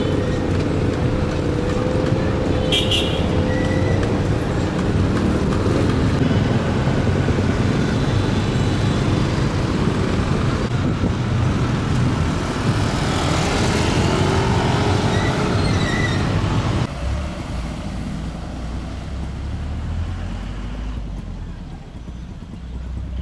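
Street traffic: motorcycles and motorized tricycles running past, with one vehicle passing close about halfway through. About three quarters of the way in the sound drops suddenly to a quieter low rumble.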